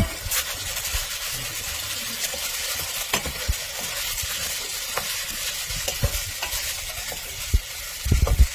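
Vialone Nano rice toasting in hot fat in a stainless steel pot with a steady sizzle. A wooden spatula stirs it, scraping and knocking against the pot now and then, with a few louder thumps near the end.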